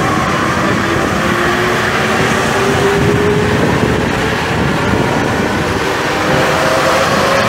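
Steady running noise of an NS74 rubber-tyred metro train heard from on board, with a motor whine that rises in pitch over the first few seconds.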